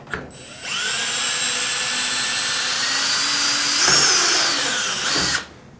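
DeWalt cordless drill with a 3/32-inch bit boring a hole through aluminium sheet, guided by a camloc drilling jig. It is a steady high whine that spins up about half a second in, wavers and sags in pitch about four seconds in, and stops shortly before the end.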